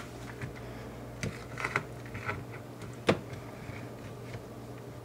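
A plastic colander handled and tipped over a plastic dehydrator tray, with soft rustling and small clicks as crumbled cooked ground beef is pushed out by hand, and one sharp plastic knock about three seconds in. A steady low hum runs underneath.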